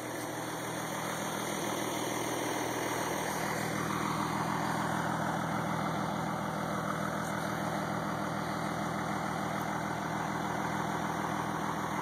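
A truck engine idling steadily.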